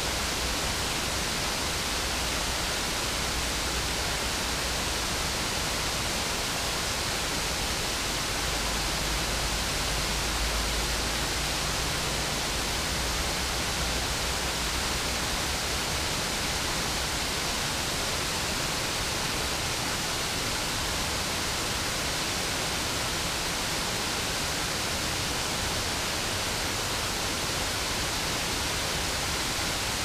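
Small waterfall pouring over a low stone dam into a rocky river: a steady, even rush of falling water. A low rumble sits under it through the first half and fades out about halfway through.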